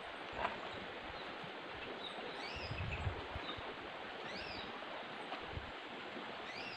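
Steady rush of river water with birds chirping briefly now and then, and a few soft thumps as banana leaves are handled.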